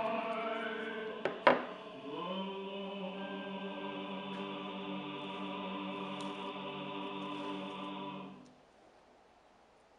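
Background music: a choir singing, holding one long chord that stops about eight seconds in. A single sharp knock comes about a second and a half in, the loudest moment.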